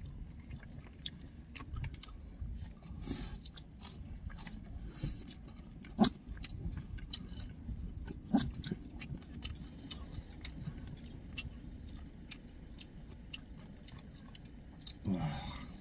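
Close-up chewing of jjajangmyeon noodles and tangsuyuk (sweet-and-sour fried pork), with many small clicks over a low steady rumble. A sharper click comes about six seconds in and another just past eight seconds, and there is a short rushing sound near the end.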